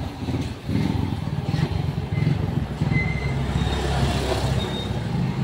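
Steady low rumble of a motor vehicle's engine running, with a few brief faint high tones over it.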